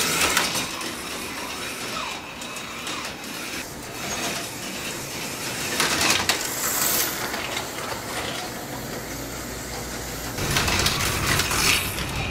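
HO-scale electric slot cars running on the plastic track, a rattling mechanical whir that swells as cars pass close by: at the start, about six seconds in and again near the end.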